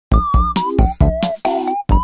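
Electronic lo-fi music: a drum-machine beat of kick and snare hits, about two to three a second, under a high, slightly wavering melody line.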